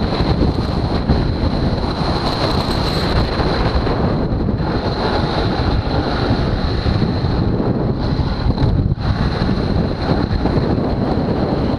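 Strong wind blowing hard on the microphone during high-speed snowboard riding on an icy slope, mixed with the board's run over hard snow. It eases briefly twice.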